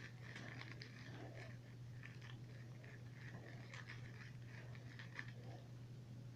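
Bengal kitten playing with a toy: faint, scattered small clicks and scratches of biting and clawing, over a steady low hum.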